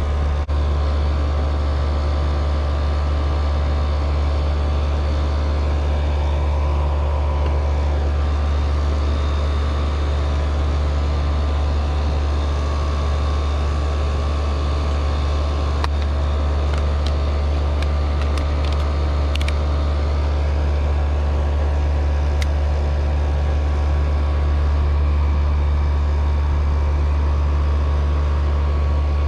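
Old R22 Lennox air-conditioning condenser running steadily: a constant low compressor hum with the outdoor fan turning, the compressor now running on a newly fitted capacitor.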